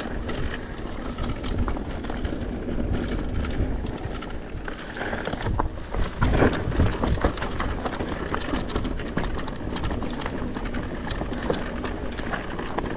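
Mountain bike descending a rocky, gravelly trail: tyres crunching over gravel and rock, with frequent small rattles and knocks from the bike over the bumps and a low rumble of wind on the microphone. The hardest run of knocks comes about six to seven seconds in.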